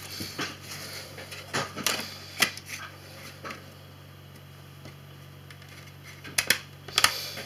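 Small plastic clicks and taps as the battery is handled and the phone's snap-on plastic back cover is pressed into place: a few scattered clicks, a quieter stretch, then a close cluster of sharp clicks near the end as the cover's edges snap home.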